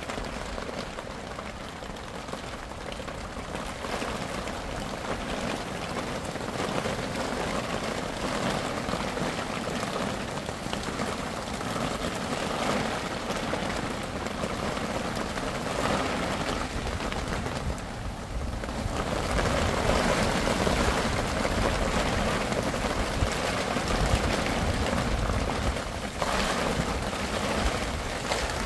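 Rain falling steadily, getting heavier about two-thirds of the way through, with a low rumble underneath.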